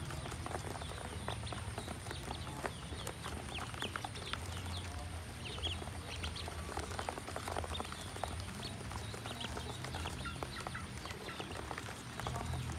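A group of ducklings peeping in many short, high chirps, with their feet tapping and scrabbling on the bottom of a plastic basin.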